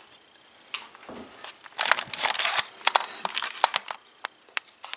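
Handling noise from a handheld camcorder being moved about: rustling and crinkling, loudest about two seconds in, with scattered sharp clicks.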